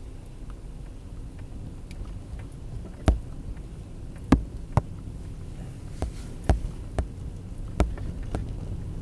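Low steady rumble of a car, with about eight sharp clicks and knocks at irregular intervals starting about three seconds in.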